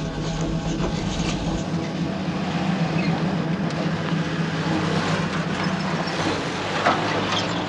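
Vehicle engine running steadily while driving, with a low drone and a few clicks and knocks near the end.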